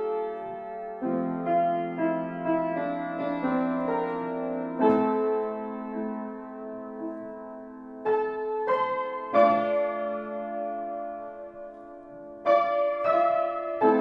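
Slow piano music: chords held for seconds at a time, with new notes struck every one to four seconds.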